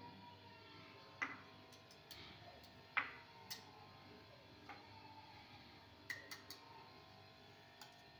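A spoon clinking and tapping against patterned dishes as spices and yogurt are scraped onto the chicken: a scattering of separate light clinks, the loudest about three seconds in, over a faint steady hum.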